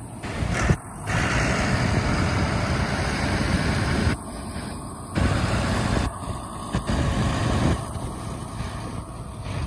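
Twin Suzuki 200 outboard motors running as the charter boat passes close by, under a steady rush of noise that dips briefly several times.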